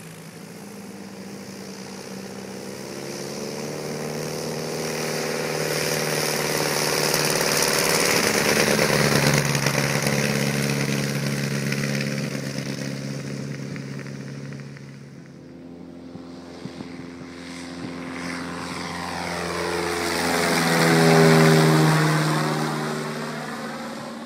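Vintage light propeller aircraft flying past low twice. Each time the engine and propeller noise swells, drops in pitch as it passes, and fades. The second pass, near the end, is the louder.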